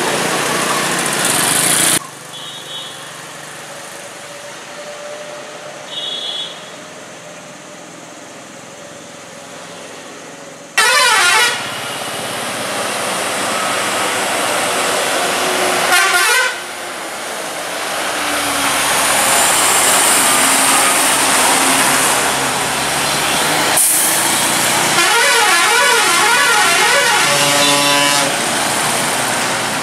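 Traffic on a hill hairpin bend: motorcycle, car and heavy-vehicle engines passing, with horns honking. There are two short high beeps, a loud horn blast about eleven seconds in, and a long warbling multi-tone air horn near the end, as a private bus comes round the bend.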